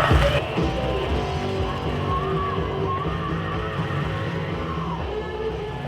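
Background music with guitar, slowly fading in level.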